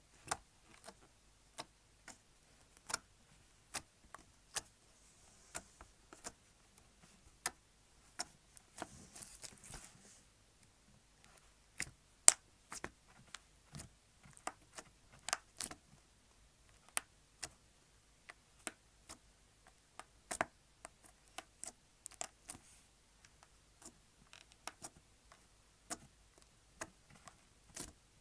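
Slime being squeezed and pressed by hand, giving irregular sharp clicks and pops, about one or two a second, with a short stretch of softer squishing noise about eight seconds in.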